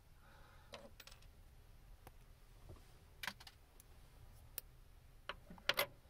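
Faint, irregular small metallic clicks as slim locking pliers grip and bend the two extra wings off a Molex Mini-Fit crimp terminal, with a louder pair of clicks near the end.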